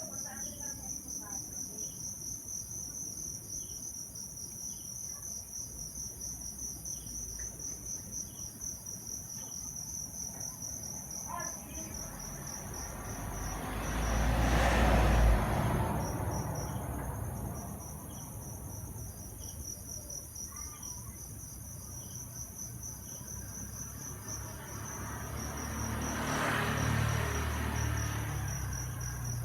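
Insects chirping in a steady, fast, high-pitched pulse. About halfway through a loud rushing noise swells and fades over a few seconds, and a weaker one swells near the end.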